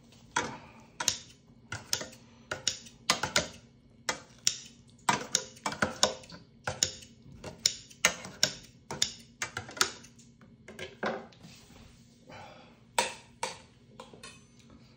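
Eating sounds: a quick run of short, sharp chewing and smacking noises, two or three a second, with a brief lull about two thirds of the way through, thinning out near the end.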